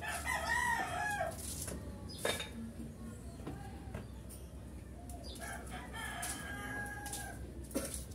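A rooster crowing twice: a short crow at the start and a longer one with a held note from about five and a half seconds in. A sharp knock falls between the crows, and another comes near the end.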